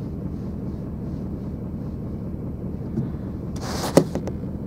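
Vehicle engine idling steadily. Near the end there is a brief rustle and a sharp knock.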